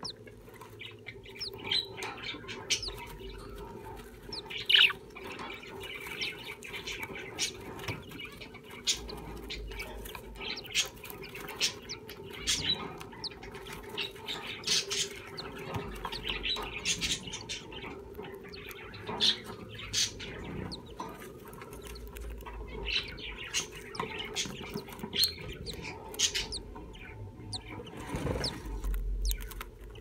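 Budgerigars shuffling in a nest box of wood shavings: scratchy rustling and light clicks, with short high chirps here and there, over a faint steady hum.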